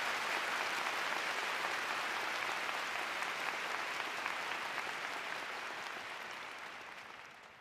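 Arena crowd applauding, dying away over the last couple of seconds.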